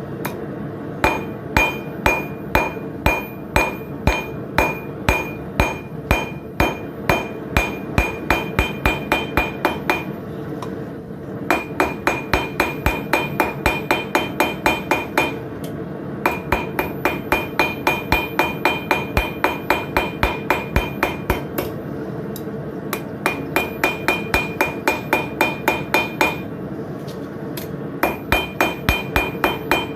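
Blacksmith's hand hammer striking steel on an anvil in rapid, even runs of several blows a second, each blow ringing, with short pauses between runs: forging.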